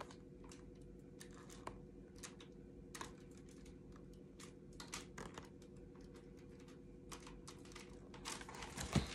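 Faint scattered clicks and rustles of a hardcover picture book being held up and shifted in the hands, over a steady low hum. Near the end comes louder rustling and a few knocks as the book is handled more.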